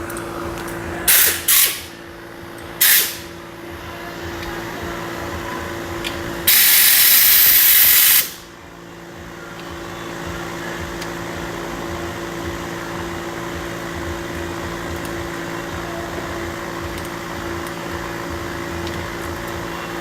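Pressurized spray hissing during a brake job: three short bursts about a second in, then one longer, louder hiss of nearly two seconds a few seconds later, over a steady shop hum.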